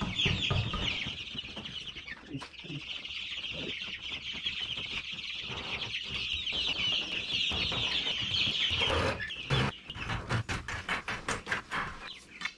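A brooder full of several-week-old chicks peeping constantly, a dense chorus of short, high, falling peeps. About nine seconds in comes a quick run of rustles and rattling knocks as the wire-covered brooder is handled.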